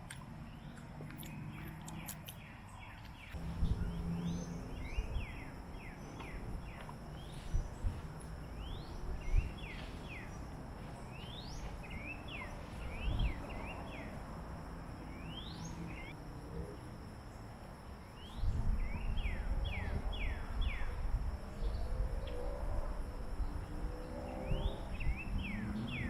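Birds calling in quick clusters of short, downward-sweeping chirps over a steady high insect buzz. A low outdoor rumble grows louder about three seconds in and again about eighteen seconds in.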